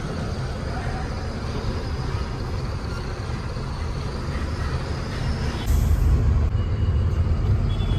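Truck engine running steadily, heard from inside the cab while driving, a low drone that gets louder about six seconds in as it pulls harder.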